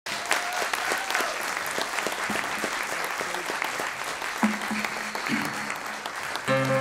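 Audience applauding, with a couple of single acoustic guitar notes plucked about four and five seconds in. The acoustic guitar starts playing chords just before the end.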